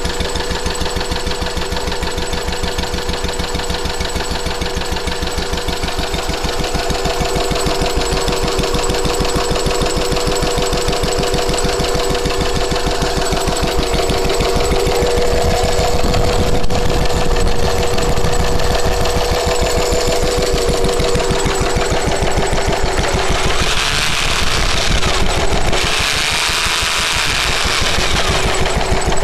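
1946 Lister D single-cylinder petrol stationary engine running steadily, its firing strokes coming in a rapid, even beat. A steady whine rides over it until about three quarters of the way through, and a brief higher hiss comes near the end.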